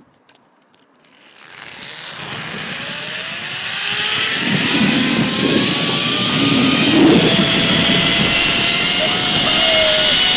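Zip line trolley pulley running along the steel cable, a whine rising slowly in pitch as it picks up speed, with wind rushing over the microphone. The noise builds over the first few seconds, then holds loud and steady.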